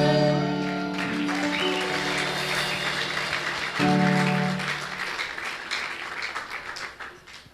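A song's final chord rings out and an audience applauds, the clapping fading away over the last couple of seconds. Another held instrumental chord sounds briefly about four seconds in.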